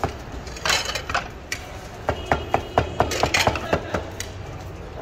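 Kitchen clatter of ceramic plates being handled and set down on a steel counter: irregular knocks and clinks, a few ringing briefly about halfway through.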